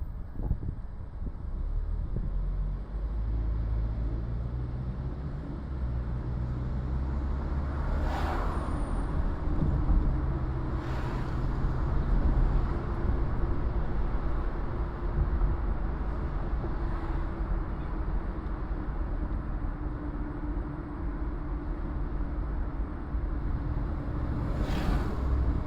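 Car driving on city streets: a steady low engine hum and road noise, with a short hiss breaking in four times.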